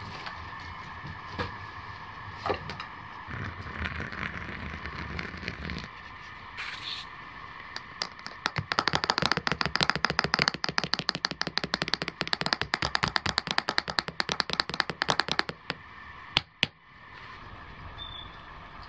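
A spoon stirring rapidly in a stainless steel camp mug: a fast, continuous run of metallic clinks lasting about seven seconds, then two sharp taps. Scattered campfire crackles come before it.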